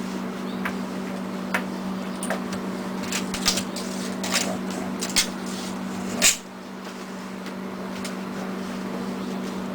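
A refrigerator-freezer, still plugged in and running, hums steadily while things are handled at it, making scattered light clicks and knocks. A louder knock comes about six seconds in, after which it is briefly quieter.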